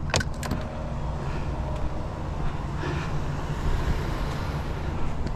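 A vehicle engine idling steadily with a low rumble. A few sharp knocks come in the first half-second as a piece of scrap is set down in the load.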